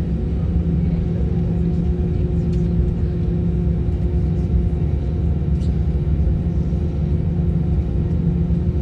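Airbus A321 turbofan engines at takeoff power, heard inside the cabin during the takeoff roll: a loud, steady deep rumble with a steady hum.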